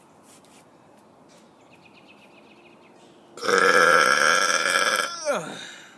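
A young man's deliberate, loud, long burp, starting about three and a half seconds in and lasting over two seconds; near the end its pitch slides down as it fades out.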